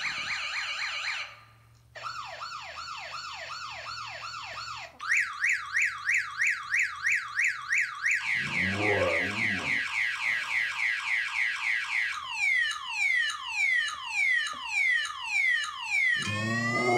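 Electronic car alarm siren cycling through its tone patterns: a fast warble, a short pause, then repeated rising sweeps, faster high yelps, rapid falling chirps and slower falling whoops.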